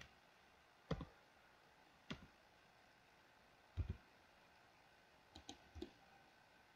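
Faint, scattered clicks of a computer mouse and keyboard keys as a 3D rig is posed, a handful of separate clicks, some in quick pairs, over near silence.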